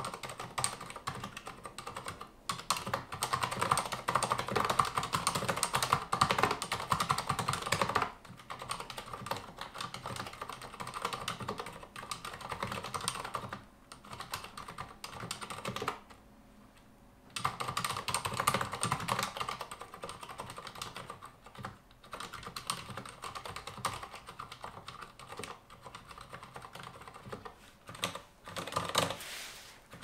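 Typing on a Durgod Taurus K310 mechanical keyboard with Cherry MX Silent Red linear switches: a rapid, continuous patter of keystrokes. It is heaviest in the first few seconds and stops for about a second midway before resuming.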